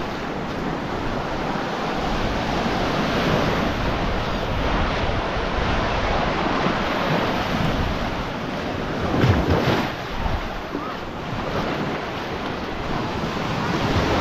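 Baltic Sea waves breaking on the shore, with wind buffeting the microphone; the noise swells briefly louder about nine seconds in.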